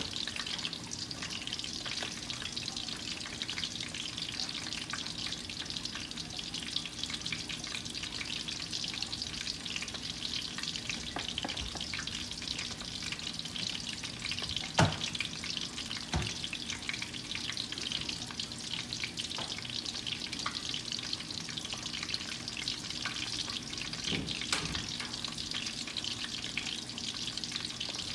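Floured chicken drumsticks shallow-frying in hot oil in a stainless steel pan: a steady sizzle and crackle throughout, with a few louder clicks, the loudest about fifteen seconds in.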